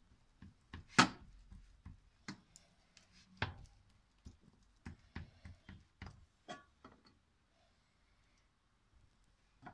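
Fingers pressing and patting buttered dough out across a metal baking tray make irregular soft taps and knocks. One sharper knock comes about a second in, and another at the very end.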